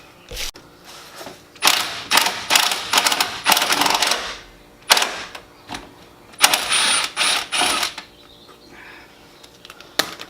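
Impact wrench run in several short bursts, rattling loose the 12 mm top nuts of a rear shock absorber.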